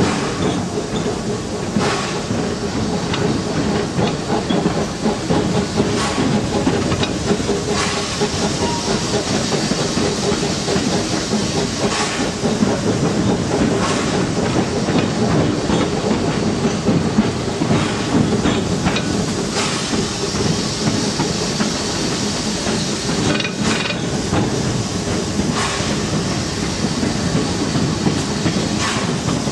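A 1925 Baldwin narrow-gauge steam locomotive on the move, heard from on board: a steady hiss of steam over the running noise, with a click of the wheels over a rail joint every few seconds.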